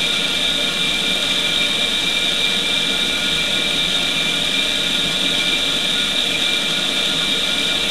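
Permanent-magnet car cooling-fan motor running steadily on 12 V: an even whine over a constant hiss, loud enough to drown out speech.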